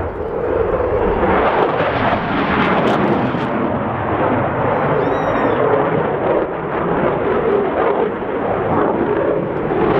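A P-51 Mustang's Merlin V12 engine running at display power as the fighter flies its routine: a loud, continuous engine noise that rises and falls slightly but never stops.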